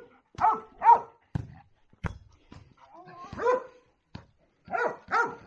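A dog barking in short barks: two about half a second apart soon after the start, one in the middle and two more near the end. A few sharp knocks fall in between.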